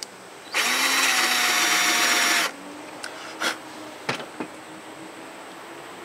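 Power drill with a Forstner bit running for about two seconds, boring a shallow hole a little deeper into a wooden bell top. A few light knocks follow.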